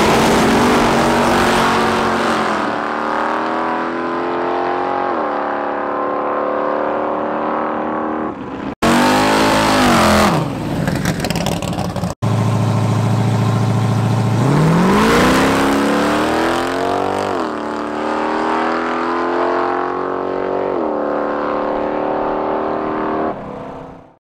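Drag-racing Ford Cortina Mk1's engine launching hard and accelerating, the revs climbing and dropping back at each upshift. After a short idle about two-thirds of the way through, it launches again and pulls through its gears before fading out.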